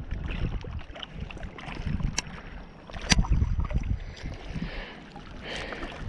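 Wind buffeting the microphone in an uneven low rumble, with a few sharp clicks, the clearest about two and three seconds in.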